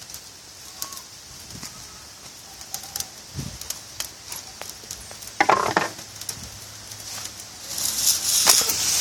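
Fire of dry leaves and twigs crackling, with scattered sharp pops over a steady hiss. Near the end, louder rustling as dry leaves and branches are pushed into the flames.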